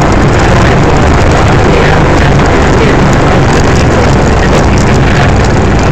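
VW Baja Bug cruising at road speed, heard from inside the cabin: a loud, steady engine drone mixed with wind and road noise.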